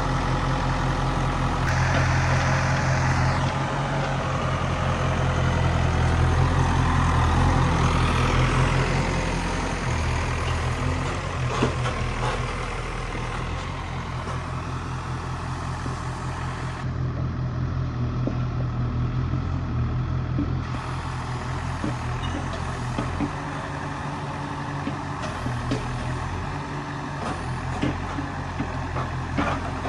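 Diesel engine of a backhoe loader running steadily at work. It revs up for several seconds a couple of seconds in, then settles back.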